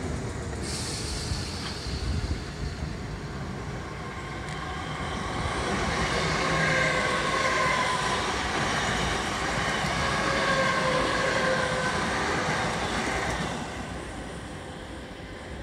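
South Western Railway suburban electric multiple unit running along the platform. There is a steady rumble of wheels on the track, with a whine of several tones through the middle. It fades near the end as the train draws away.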